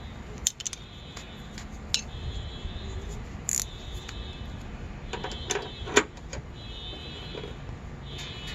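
Scattered sharp metallic clicks and clinks from hand wrenches on a bolt and nut as a rivnut is drawn up and set, the loudest about six seconds in.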